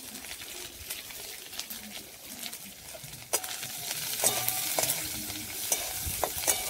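Chopped onion sizzling as it fries in hot mustard oil in a kadai, stirred with a metal spatula that clicks and scrapes against the pan. The sizzle grows louder about three seconds in.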